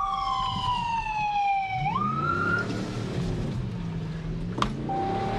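Fire engine siren wailing, its pitch falling steadily for about two seconds, then jumping back up briefly and fading. A low engine drone runs underneath, with a short click near the end.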